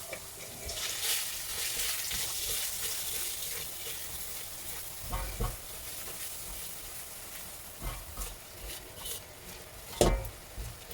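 Onion and spice masala sizzling in hot oil in a pan while a spatula stirs and scrapes it, with a few knocks of the utensil against the pan, the loudest near the end.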